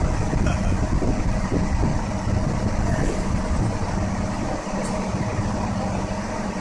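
EF81 electric locomotive running light slowly into the platform: a steady low rumble with a constant hum, the rumble easing a little past the middle.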